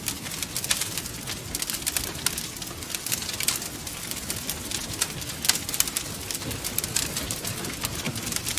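Wood fire crackling, with frequent sharp pops and snaps over the low, steady rumble of the flames; one pop about five and a half seconds in is the loudest.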